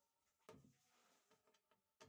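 Near silence: faint room tone, with a faint click about half a second in and a few faint knocks after it.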